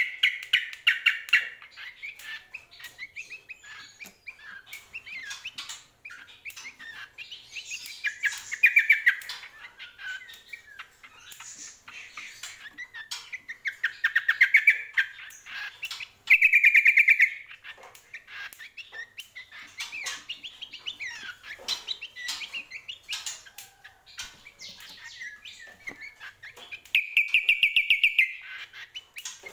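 Caged cucak kombo singing in full voice: loud bursts of fast, rattling trills repeated five times, with scattered short chirps and calls in between.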